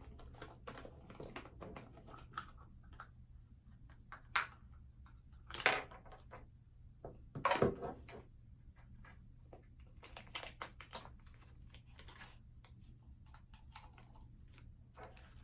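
Hands opening and handling a plastic squishy toy container and its packaging: scattered clicks, taps and rustles, with a few louder knocks and scrapes about four to eight seconds in.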